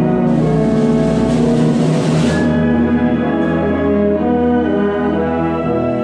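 Live concert band playing held, full chords led by brass, with a bright high wash over the first two seconds.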